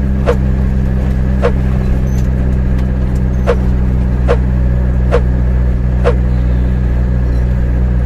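Truck engine running steadily, heard inside the cab as a low even drone, with a few short sharp clicks at irregular intervals.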